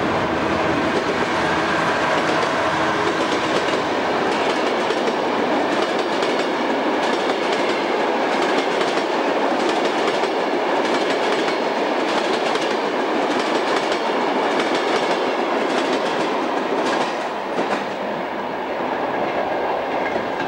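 A passenger train of Mk2 coaches running past behind NIR's General Motors diesel locomotive 209. The locomotive's engine hum is heard for the first few seconds. After that comes a steady rolling rumble with repeated sharp wheel clicks over the rail joints, and the sound drops off near the end as the rear of the train goes away.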